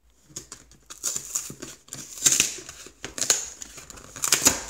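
Glued flap of a cardboard retail box being pried open by hand, the glue seal crackling and tearing away from the cardboard in several loud bursts.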